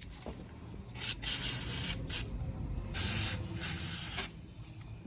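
Aerosol spray can hissing in three bursts, the first about a second long, then two shorter ones close together near the end.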